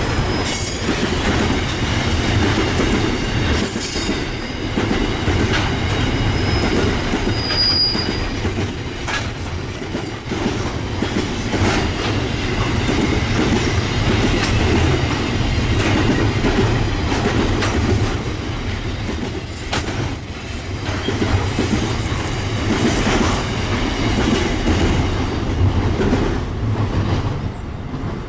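Container freight train rolling past, its wagon wheels clattering over the rail joints, with high-pitched wheel squeals twice. The noise falls away near the end as the last wagon clears.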